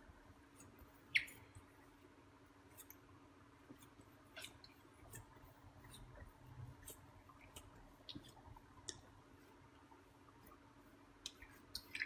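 Faint scattered sticky clicks of soft bread dough being pressed and rolled by hand on a silicone baking mat, one a little louder about a second in. The dough is being pressed out to push the trapped air from it.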